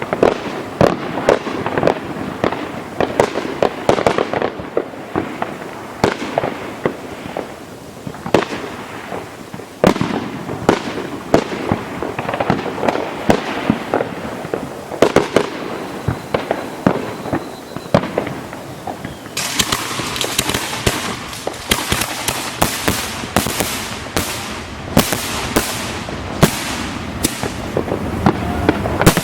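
Fireworks display: a rapid, continuous run of overlapping bangs and bursts. About two-thirds of the way through it turns into a denser run of sharp cracks.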